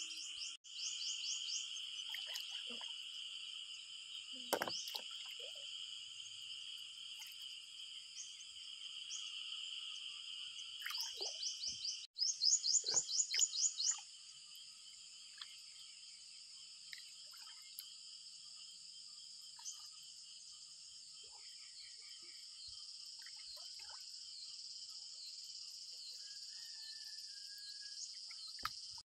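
Steady chorus of calling insects, joined twice by rapid trains of repeated chirps, the louder near the middle, with a few faint short knocks.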